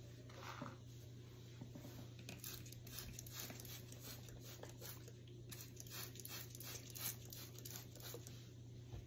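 Faint, irregular rustling and crackling of hands working through hair, over a steady low hum.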